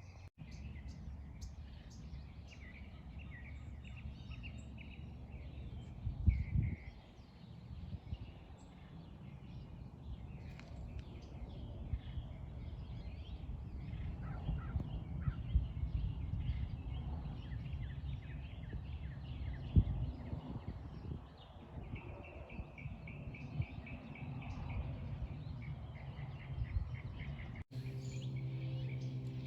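Outdoor background noise: a steady low rumble with small birds chirping, and a few brief louder knocks about six and twenty seconds in. Near the end, after a cut, a steady low hum with several tones takes over.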